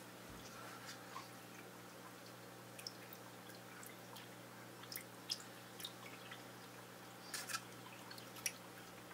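Quiet aquarium sounds: scattered faint water drips and clicks, a few close together near the end, over a steady low electrical hum.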